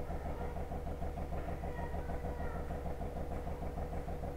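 An engine idling steadily in the background, a low hum with an even, rapid pulse.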